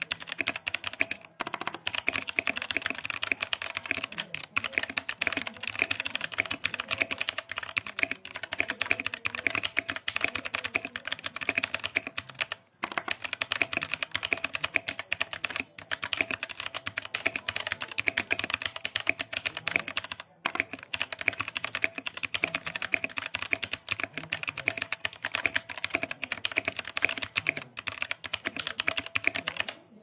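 Steady, fast typing on a Vortexseries VX5 mechanical keyboard with factory-lubed Outemu Brown tactile switches and PBT keycaps: a dense stream of key clacks broken by a few brief pauses.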